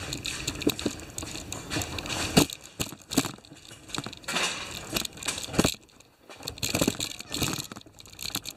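Rolling chair's casters rattling over a concrete floor, with irregular clicks and knocks and a short lull about six seconds in.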